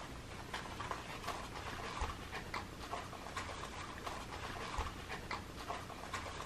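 Cat eating crunchies from a paper cup: a quick run of small eating noises, about two or three a second.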